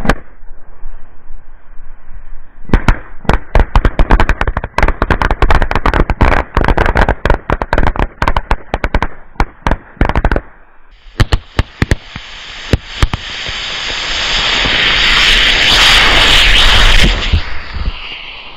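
A chain of small firecrackers goes off in a rapid, uneven string of bangs for about seven seconds. Then a pack of small rockets ignites with a few last bangs and burns with a hiss that grows steadily louder before cutting off near the end.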